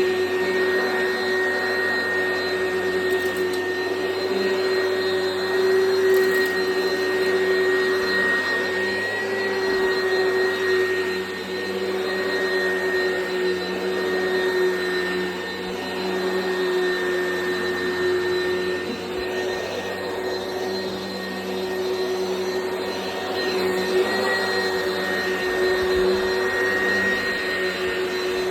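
Oreck XL Commercial upright vacuum cleaner running steadily: a constant motor whine over a whooshing airflow, the level swaying a little as it is worked across the floor.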